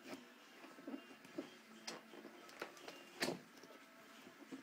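Hands handling a cardboard box while opening it: scattered sharp clicks and light scrapes of card, the loudest click about three seconds in.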